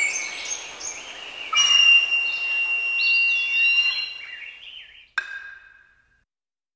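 Ringing chime tones mixed with bird chirps, fading out; a single sharp strike with a short ring comes about five seconds in, and everything dies away about six seconds in.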